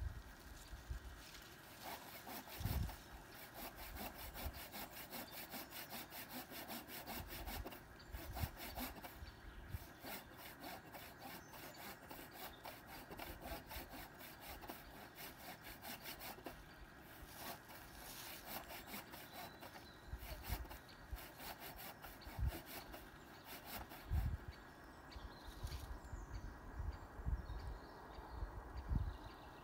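Hand saw cutting into a branch of a fallen tree, with runs of quick, regular back-and-forth strokes broken by short pauses. A few dull low thumps near the start and the end.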